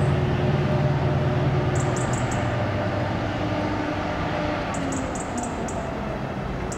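DRS Class 68 diesel-electric locomotive hauling a railhead treatment train, its engine giving a steady low drone that gradually fades. Faint high chirps come in short clusters every few seconds.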